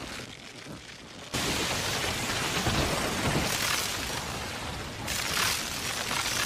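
Anime battle sound effect: a heavy rumbling, explosion-like noise that jumps up sharply about a second in and surges again near the end.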